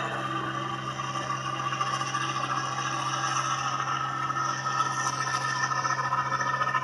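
Rice combine harvester running steadily while cutting standing paddy: a steady engine hum with the whir and rattle of the working machine, a little louder in the last few seconds.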